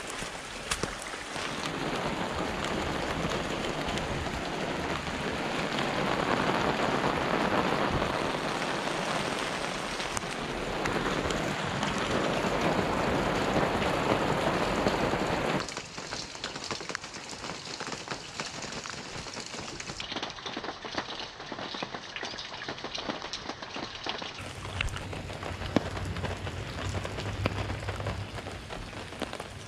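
Steady rain, a dense loud hiss, for about the first half; then it drops suddenly to a lighter patter of raindrops with many small ticks.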